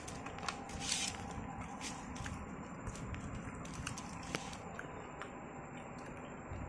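Eating rice and chicken curry by hand from a steel plate: faint squishing of fingers mixing the food, with a few light clicks against the plate.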